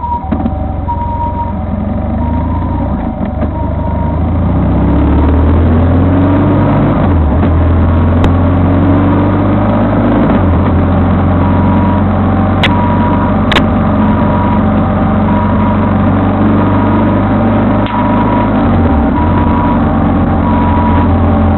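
Vehicle engine and road noise heard from on board, the engine drone building up over the first few seconds as the vehicle speeds up, then running steadily. A faint two-tone siren alternating high and low, like a Japanese ambulance, sounds at the start and comes back about halfway through.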